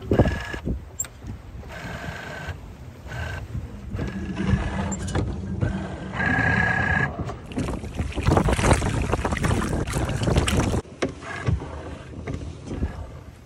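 Small sailboat under way in rough water: a steady rush of wind and water, with repeated short, high squeaky creaks from the boat's gear. A louder rush of noise runs from about eight to eleven seconds in.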